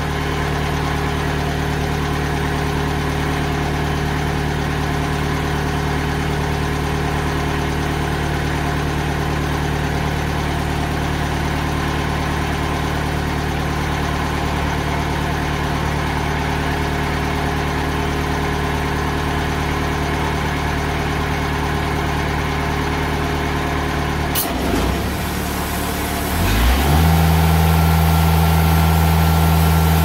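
TimberKing 2000 bandsaw mill's engine running steadily at a low speed. About 24 seconds in there is a click and a brief dip, and then the engine picks up to a higher, louder steady speed.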